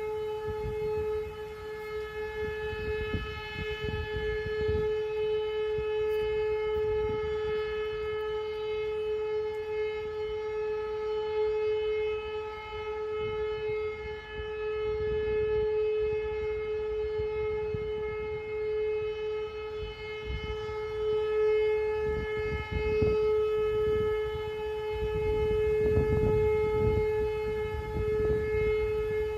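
A civil-defence siren sounds one steady, unwavering tone: the Austrian 'Warnung' signal, a three-minute continuous tone that warns of approaching danger, sounded here as a test alarm. Irregular low rumbling gusts come and go underneath.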